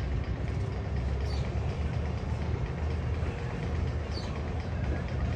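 Steady low rumble of a roller coaster train rolling along its track, with two faint brief high chirps.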